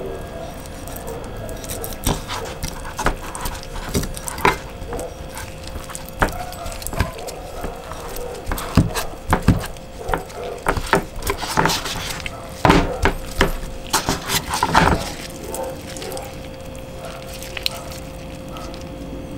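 Knife cutting raw chicken drumsticks on a cutting board: irregular clicks and taps of the blade against the board with wet squishes of the meat, busiest about halfway through, over a steady faint hum.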